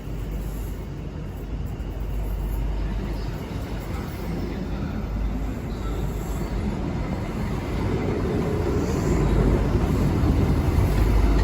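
Midland Pullman HST with class 43 diesel power cars moving off, the engine and wheel noise growing steadily louder toward the end.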